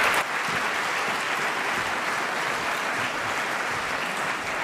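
Large seated audience applauding. The applause steps down a little just after the start, then holds steady.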